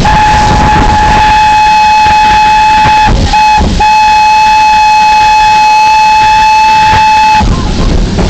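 Steam locomotive whistle blowing at close range: a long blast, a short one, then another long one that stops about seven seconds in. Together with the long blast just before, this is the long-long-short-long grade-crossing signal.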